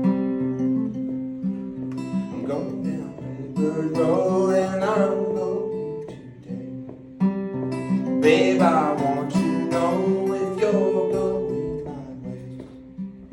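Live acoustic music: acoustic guitar played with a steady strum, with a melody line that bends in pitch laid over it in two phrases.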